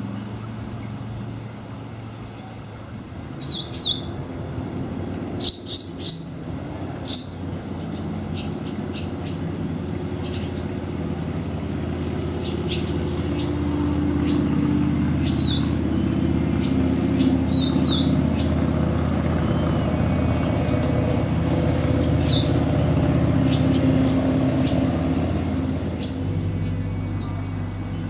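Barn swallows calling: short high chirps every few seconds, with a louder burst of sharp twittering about six seconds in. A steady low rumble runs underneath.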